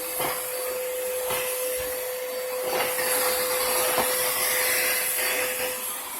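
Vacuum cleaner running steadily, a rushing hiss of air with a steady whine, broken by a few light knocks.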